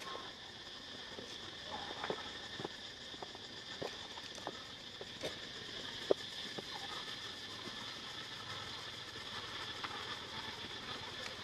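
Steady high-pitched outdoor background hum with scattered light taps and rustles, one sharper tap about six seconds in.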